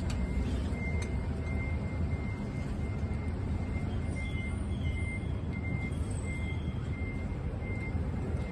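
A vehicle's reversing alarm: a short high beep repeating about twice a second, starting about a second in and stopping near the end, over a steady low rumble of traffic.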